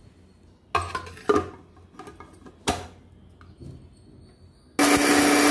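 A few knocks of a steel mixer-grinder jar and its lid being handled and closed. Near the end the electric mixer grinder starts running loud and steady, grinding roasted gram and chilli powder.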